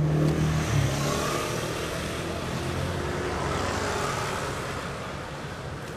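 A motor vehicle passing: a low engine hum at first, then a swell of engine and road noise that peaks in the middle and fades towards the end.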